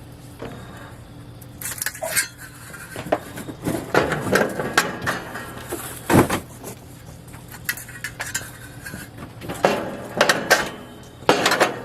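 Metal grill parts clanking and clinking as they are set into the cookbox of a Weber Genesis II gas grill: irregular knocks, some with a short metallic ring.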